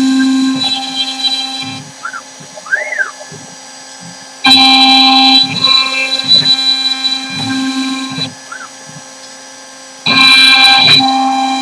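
CNC router spindle running steadily, with its bit cutting into the wooden turkey box call in loud stretches of a few seconds that start suddenly and twice drop back to a quieter hum. In the quieter gaps the axis motors whine briefly with a rising-then-falling pitch as the machine moves between cuts.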